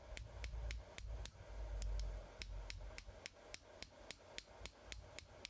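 Hand hammer striking red-hot steel on an anvil in a quick, even rhythm of about four light blows a second, refining blows that tidy the edge of a forged hot cut hardie, with a low rumble swelling underneath about two seconds in.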